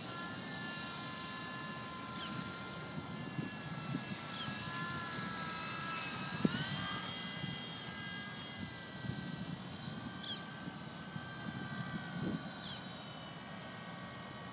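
Small electric RC helicopter (Double Horse 9116) in flight, its motor and rotor whining steadily as a stack of high tones. The pitch rises about six and a half seconds in as the throttle is opened. Wind buffets the microphone underneath.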